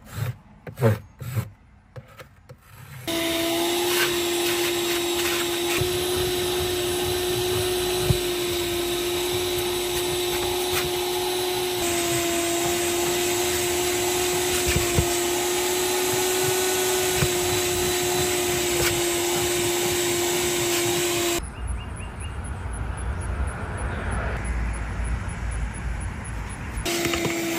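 Vacuum cleaner starting after a few knocks and running steadily with a constant motor whine. Near the end the whine drops out for several seconds, leaving a low rumble, then comes back.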